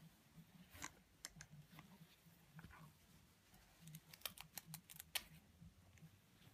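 Faint, scattered clicks and taps of plastic toy construction pieces being handled on a plastic pegboard, with a quick run of clicks about four to five seconds in.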